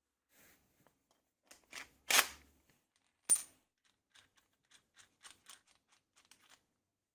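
Hardware being fitted to a homemade plywood belt-grinder wheel: a knock about two seconds in, a sharp metallic clink with a brief high ring about a second later, then a run of small light clicks as a nut is worked onto a bolt through the wheel's bearing.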